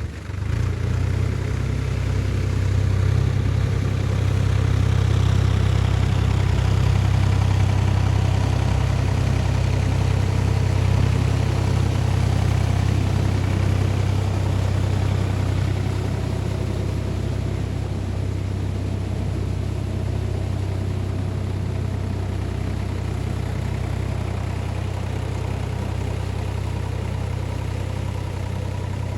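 Solis 5220 tractor's diesel engine running steadily, growing louder over the first few seconds and then easing off slightly.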